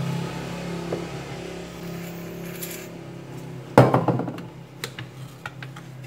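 Handling noise: a sharp clattering knock about four seconds in, followed by scattered light clicks, as a spray can, a cloth and the phone are handled on the work mat. A low hum runs underneath in the first half.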